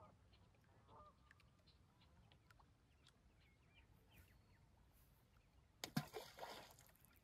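Faint honking of geese across the water, with a short splash in the lake about six seconds in.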